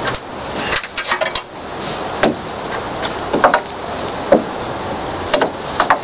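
Hammer striking nails into wooden deck-railing spindles: a quick run of taps about a second in, then single strikes roughly a second apart.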